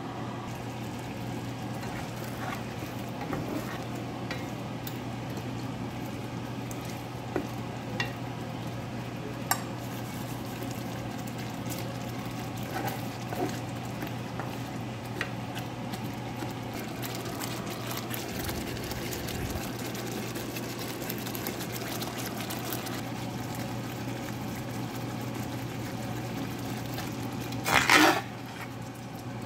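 Thick egg curry gravy simmering in a pan while a wooden spatula stirs it, with scattered small clicks against the pan over a steady low hum. Near the end a louder, noisier burst comes as a metal ladle scoops through the gravy.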